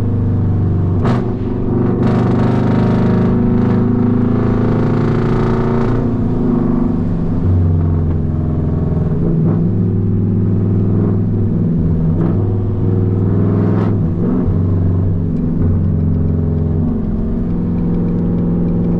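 A car engine running steadily, with its low hum changing pitch a few times, and a couple of brief clicks.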